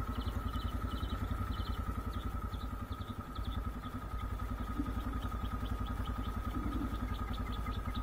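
Vehicle engine idling with an even, fast low throb, while birds chirp in short repeated calls.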